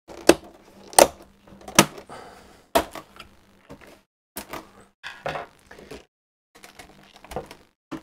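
Plastic clips of an HP all-in-one PC's screen snapping into its housing as the panel is pressed down along its edges. There are four sharp clicks in the first three seconds, then lighter clicks and knocks.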